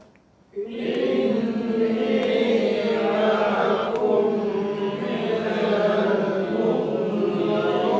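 A group of students reciting the Quranic phrase 'innī maʿakum mina l-muntaẓirīn' together in a slow chanted unison, repeating it after the teacher, starting about half a second in. Where the silent mim of 'maʿakum' meets 'mina', they hold a nasal hum (ghunnah), which is the rule being drilled.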